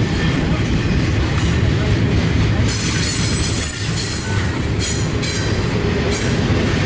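Double-stack intermodal freight cars rolling past on steel rails with a steady heavy rumble. The wheels squeal high-pitched from about three seconds in for a second and a half, and again briefly near the end.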